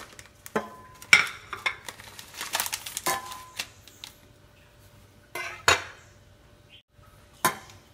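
Scattered knocks and clinks of kitchenware handled on a countertop, a couple of them with a short metallic ring. A cleaver is set down on a bamboo cutting board with a sharp knock about six seconds in.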